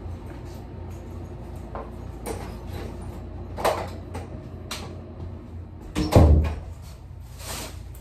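A few separate knocks or bangs over a steady low hum, the loudest about six seconds in.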